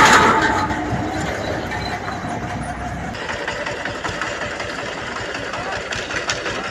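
Engine of road-work machinery running. Its low rumble drops away about three seconds in, leaving a fainter mechanical clatter with scattered ticks.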